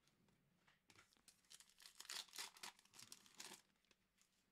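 Faint crinkling and tearing of a trading-card pack wrapper being ripped open, a quick run of small rips and rustles lasting about two and a half seconds, starting about a second in.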